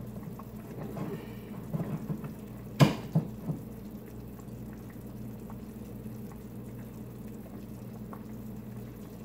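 Worcestershire sauce poured from its bottle into a measuring spoon over the mixing bowl, with light clinks and one sharp knock about three seconds in, over a steady low hum.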